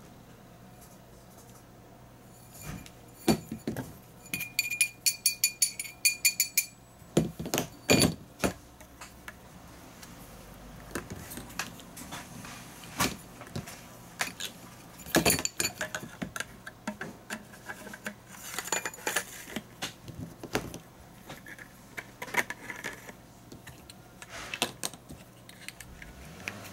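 Clicks, clacks and light rattles of a triangle scale being handled on a hard table and fitted into its clear plastic tube case. About five seconds in there is a quick run of rattling taps with a light metallic ring, and there are a few sharper knocks later on.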